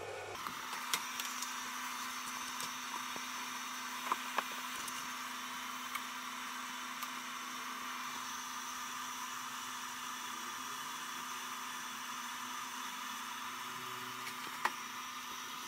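Steady whirring of small cooling fans and motors, from the CNC control box and the stage lights switched on through its relay module, with a steady low hum. It starts about half a second in as the lights come on. A few light clicks sound over it.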